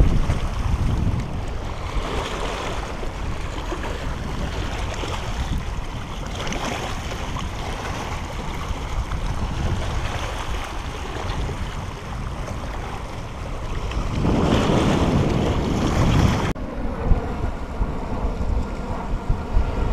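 Small sea waves washing over flat shoreline rocks, mixed with wind on the microphone; a louder wash of surf comes about three quarters through. After a sudden cut near the end, gusty wind buffets the microphone.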